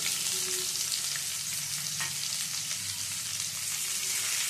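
Sliced onions sizzling in hot mustard oil in a kadai, a steady frying hiss, while a silicone spatula stirs them.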